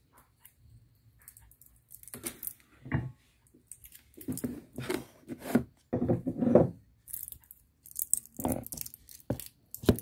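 Irregular clicks, taps and rustles of objects being handled on a wooden table close to the microphone, including a smartphone being set upright in front of it.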